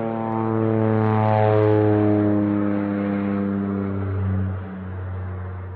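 An engine running steadily, its droning pitch slowly falling and fading toward the end.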